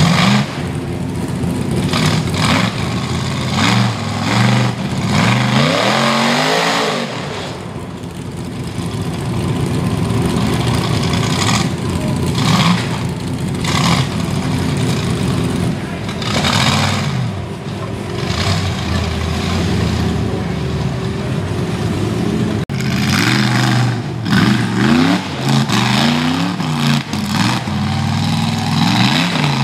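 Rock bouncer buggy's engine revving hard in repeated rising and falling bursts as the buggy climbs rock ledges.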